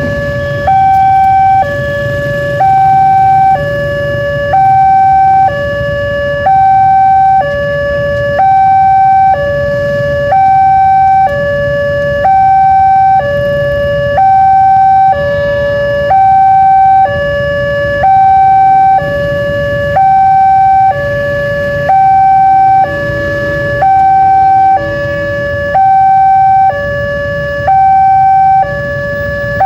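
Indonesian railway level-crossing warning siren sounding its two-tone signal, switching between a high and a low tone about once a second, steady and loud: the warning that the barriers are down and a train is coming. A low rumble runs underneath.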